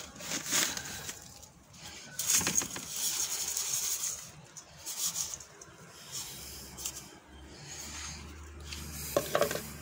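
Salt scooped with a plastic scoop and poured into a stainless steel bowl on a digital scale, in several short bursts. A low steady hum comes in about six and a half seconds in.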